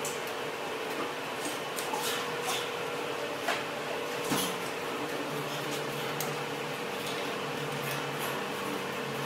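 Steady machine hum with scattered light metal clinks and knocks as tooling is handled and fitted onto a line boring bar.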